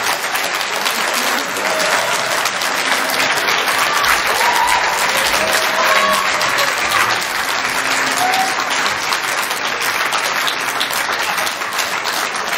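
Audience applauding steadily, a full room of hands clapping, with a few voices calling out over it.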